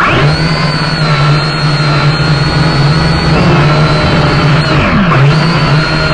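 Small quadcopter drone's motors and propellers spinning up suddenly and running as a loud, steady buzzing whine. About five seconds in, the pitch dips briefly and recovers as the motor speed changes.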